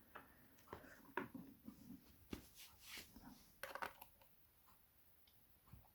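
Faint clicks and light taps of small lock parts being handled and set down, with a little rustling. They are scattered through the first four seconds, then it goes nearly quiet.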